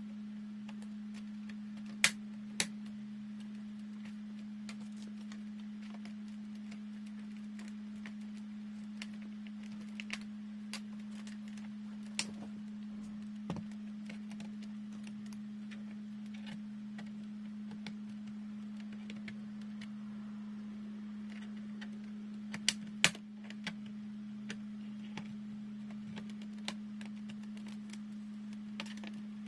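Scattered light clicks and taps of small tools and laptop parts being handled, the sharpest about two seconds in and a pair near the end, over a steady low hum.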